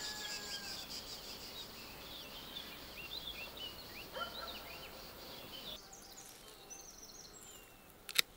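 Small birds chirping over a steady high insect trill; about six seconds in this gives way to a quieter background with a few faint bird notes. A single sharp click comes near the end.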